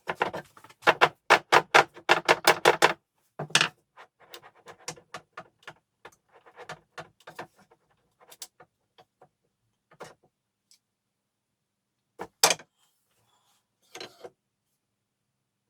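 Hand work on an antique wooden table: a quick rhythmic run of short scraping or rubbing strokes, about five a second, then scattered light clicks and two louder knocks near the end.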